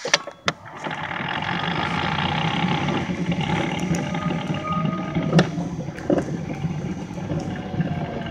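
Toylander ride-on vehicle driving at about 22 km/h, heard from on board: a steady running and rolling noise that builds about a second in, with a few sharp knocks and rattles from the body.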